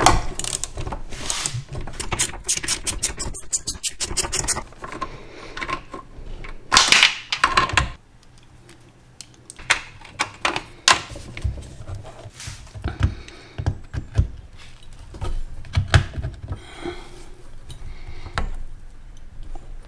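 Ratchet wrench clicking in quick runs as the 13 mm nuts holding a clutch master cylinder to the firewall are worked loose, with scattered metal clinks and knocks of tools. The loudest run of clicking comes about seven seconds in.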